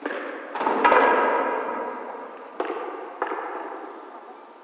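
A run of sharp metallic clangs, each ringing on and fading. Three come in the first second, the third the loudest, and two more follow at about two and a half and three seconds.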